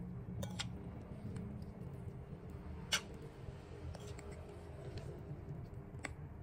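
Metal fork and spoon clicking against each other and the bowl as noodles are lifted and twirled: a few sharp clicks, the loudest about three seconds in, over a steady low hum.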